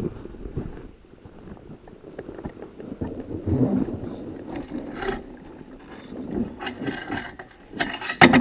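Irregular clunking and rattling from the front end of a 2014 BMW F800GS Adventure coasting over rough ground with the engine off, over a low rumble of tyre and wind noise, with one loud clunk near the end. The clunk comes from worn steering head bearings, which the owner suspects were never properly tightened from the factory.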